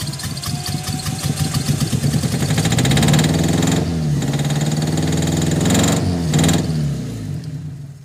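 Toyota 4A-F four-cylinder engine turned over on the starter during a compression test, at first with an even cranking rhythm. From about three seconds in it is louder and uneven, with the pitch rising and falling, and it fades away near the end. The cylinder under test holds over 150 psi: good compression.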